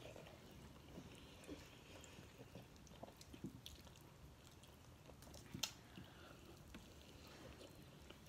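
Faint chewing and mouth sounds of people eating chicken wings with their hands, with scattered small clicks and one sharper click a little past halfway.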